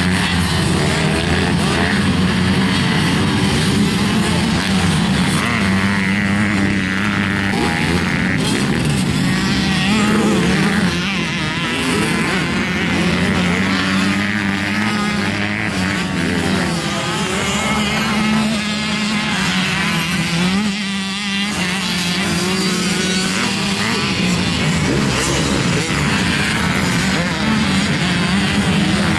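Several 85cc two-stroke motocross bikes revving up and down continuously as they ride the track, their engine notes overlapping and rising and falling with the throttle.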